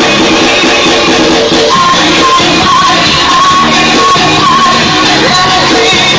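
Loud music with a singing voice, played over a sound system fitted to a motorcycle.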